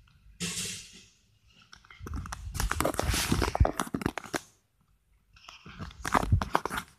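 Blanket and bedding rustling, rubbing right against the phone's microphone, in three bursts of rustling full of small crackles: a short one about half a second in, a long one from about two to four and a half seconds, and another near the end.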